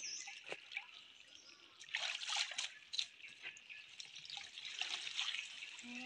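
Water splashing, trickling and dripping as a folding mesh net trap is pulled up out of a shallow stream, with water running off the netting. It is quieter at first, and the splashing starts about two seconds in as the trap leaves the water.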